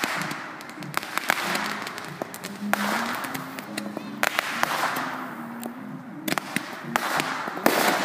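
Consumer fireworks going off: sharp cracks and spells of crackling, with distant music from an outdoor concert playing a simple stepping tune underneath.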